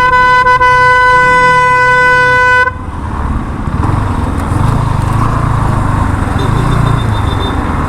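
A vehicle horn sounding one steady, loud tone, held until it cuts off sharply about three seconds in, followed by the engine and road noise of a motorcycle riding through traffic.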